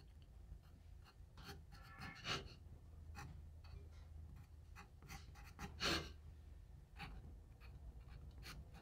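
Pencil writing on a poplar board: faint, short scratching strokes as depth marks are written, with a couple of slightly louder strokes about two and six seconds in.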